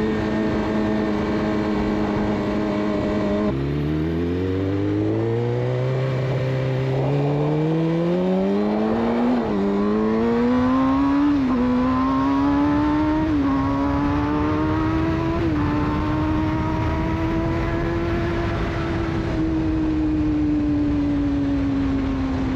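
Suzuki GSX-R600 inline-four with a de-catted Yoshimura exhaust. It holds steady revs, then the revs drop suddenly and it pulls away from low revs, accelerating hard through four quick upshifts. The pitch climbs in each gear and dips at every shift. It then cruises at steady revs that ease slightly near the end.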